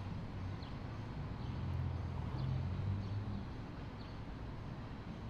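Outdoor background ambience: a steady low rumble that swells briefly in the middle, with faint, short, high chirps about once a second.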